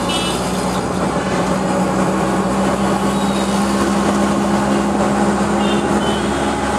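Auto-rickshaw engine running steadily with road and traffic noise, heard from inside the open cab. Two brief high beeps sound, one at the start and one near the end.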